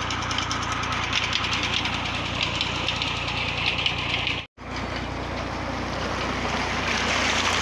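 Farm tractor's diesel engine running steadily under load, driving a tubewell pump through its PTO shaft. The sound cuts out about four and a half seconds in, after which water rushes through an irrigation channel.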